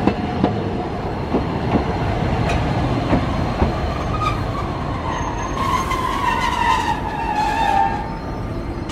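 Toei Arakawa Line tram clicking irregularly over the rail joints, then a drawn-out whine from the tram that falls slightly in pitch, from about four seconds in until near the end.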